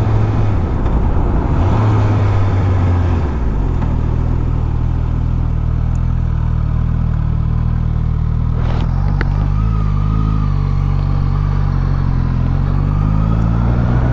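2022 Suzuki GSX-S1000GT's inline-four engine at low revs through a slow U-turn. The revs drop about three and a half seconds in and hold low and steady, then rise near the end as the bike pulls away. There is a brief click about nine seconds in.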